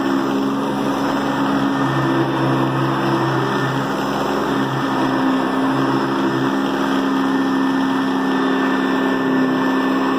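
Hoover High Performance Convertible upright vacuum with a 5-amp motor running steadily at its single speed, a constant motor hum with a high whine above it.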